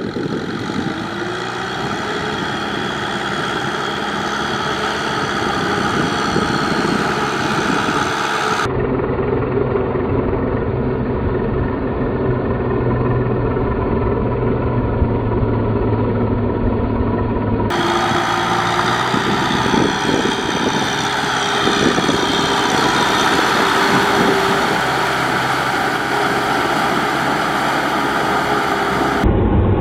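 Tractor engine running steadily under load while ploughing deep mud. The sound changes abruptly twice, about nine and eighteen seconds in, where the footage is cut.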